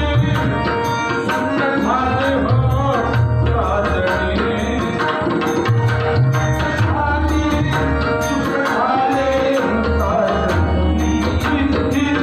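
Marathi devotional bhajan played live: a male voice sings over a harmonium's held chords, with pakhavaj and tabla keeping a busy rhythm of sharp strokes and deep, booming bass strokes.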